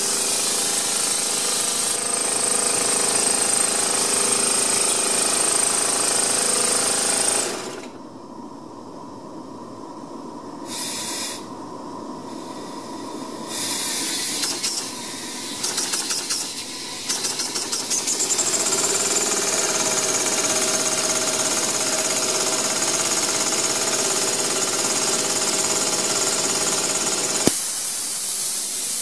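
Steam blowing off through a pressure relief valve on a homemade boiler: a loud hiss with a high whistle, which drops away about eight seconds in, comes back in short sputtering, chattering bursts, then settles into a steady whistling hiss again. The valve stays open instead of reseating cleanly, which the owner thinks is because it can't handle enough steam volume.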